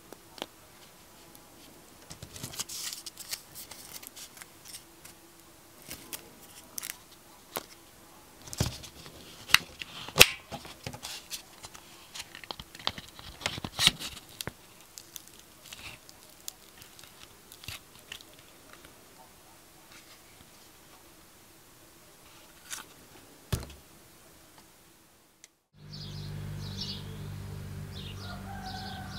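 Close handling noise of aluminium foil crinkling around a small metal lure blank, with irregular sharp clicks and knocks from a plastic spring clamp and wooden blocks; the loudest clicks come around ten seconds in. About 26 seconds in it cuts to birds chirping over a steady low hum.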